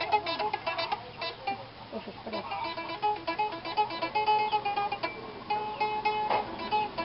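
Homemade tin-can guitar (viola de lata) with a wooden neck, picked in quick runs of single notes. The instrument is out of tune.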